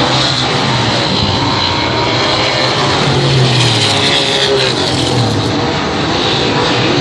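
Race car engines running hard, the engine pitch rising and falling as the revs go up and down.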